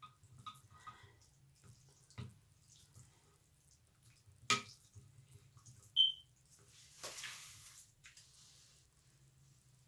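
Wooden chopsticks clicking and scraping against a glass bowl of pho noodles: soft scattered clicks, a sharper knock about four and a half seconds in, and a brief high ping from the glass about six seconds in. Near seven seconds comes a wet slurp lasting about a second.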